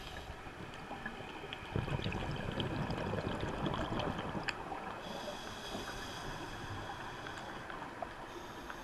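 Underwater ambience: a steady hiss with scattered small clicks, and a louder bubbling rush that starts about two seconds in and lasts about three seconds.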